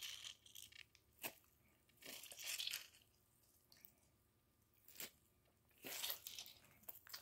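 Mostly near silence, with faint squishing and crackling from a lemon half being squeezed by hand, and a few soft ticks.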